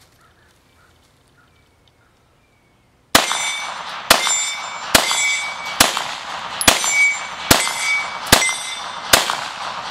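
Eight 9mm pistol shots from a Glock 19 Gen 4, fired at an even pace a little under a second apart starting about three seconds in, each shot followed by a ringing tail.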